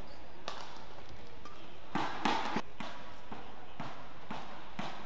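Badminton rackets striking a shuttlecock in a fast doubles rally: sharp cracks about twice a second, loudest in a quick cluster about two seconds in.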